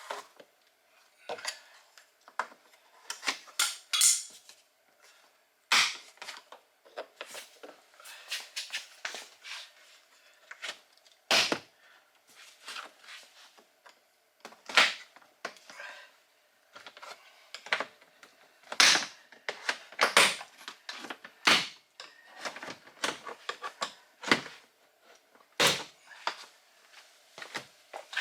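Plastic retaining clips of a 2017 Kia Sorento's rear door panel popping loose as the panel is pried off with plastic trim tools: a long run of sharp, irregular snaps and clicks with scraping in between.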